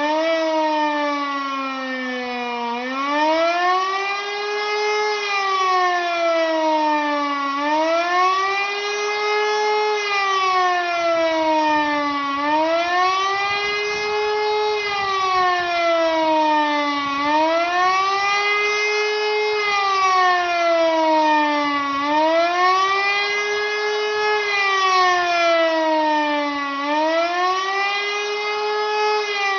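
E57 electric motor siren sounding the "Warnung" warning signal: a wailing tone that rises and falls steadily, one cycle about every five seconds.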